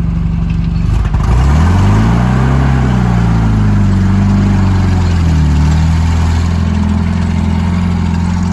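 A vehicle engine running close by, revving up about a second in, its pitch rising and falling a few times before it settles into a steady run.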